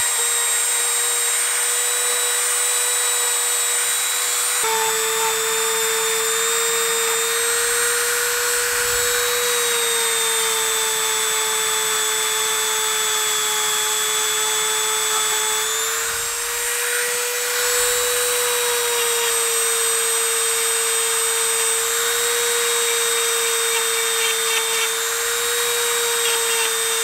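Handheld electric rotary tool running at high speed with a small bit, cleaning nickel rivet heads on a leather sheath. It gives a steady high whine whose pitch wavers slightly as it is pressed on the rivets.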